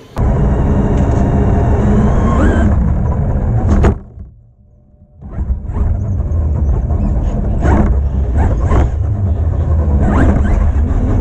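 Traxxas X-Maxx RC monster truck heard from its own onboard camera as it drives over skatepark tarmac: a loud rumble of tyres and drivetrain with an electric motor whine that rises as it speeds up. The sound drops away for about a second near the middle, then picks up loud again with several sharp knocks from bumps.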